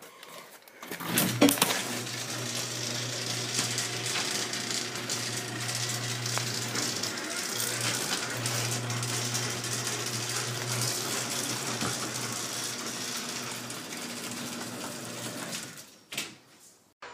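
Craftsman half-horsepower garage door opener running the door through its travel: a click about a second in, then a steady motor hum for about fifteen seconds that stops shortly before the end.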